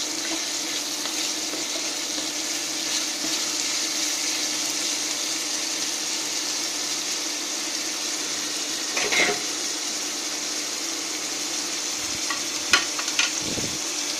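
Chopped onions sizzling steadily in hot oil in a nonstick pan, stirred at first with a wooden spatula, over a steady low hum. A few short knocks of utensils on the pan come about two-thirds of the way in and near the end.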